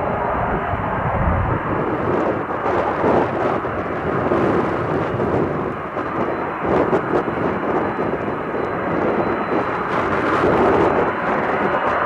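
Jet engines of a twin-engine airliner running at low power as it taxis, mixed with strong wind buffeting the microphone in gusty rumbles.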